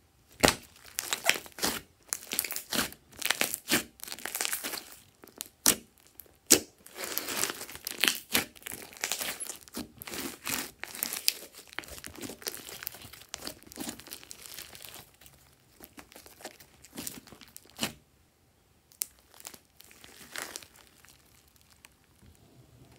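Glossy slime being stretched, folded and squeezed by hand: a stream of sticky crackles, pops and squelches. It is dense for most of the time, then sparser, with a brief pause near the end.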